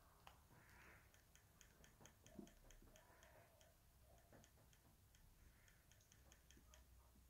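Faint, rapid clicking of the Bafang SW102 e-bike display's button, pressed again and again at about four clicks a second to step the assist level down.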